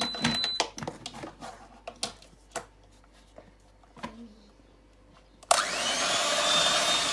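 A few clicks and knocks, then about five and a half seconds in an electric hand mixer switches on suddenly and runs steadily with a high whine as its beaters churn butter and sugar in a plastic bowl.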